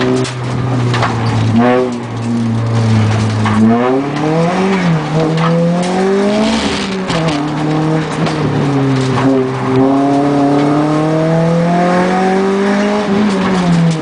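Racing car's engine heard from inside the cabin during an autoslalom run, its pitch rising and falling again and again as the driver accelerates, lifts and shifts gear. A brief tyre squeal comes about halfway through.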